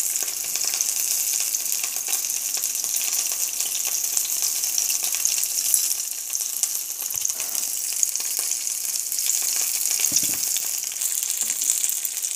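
Hot oil sizzling and crackling steadily under frozen potstickers pan-frying flat side down in a non-stick frying pan while their bottoms brown and crisp.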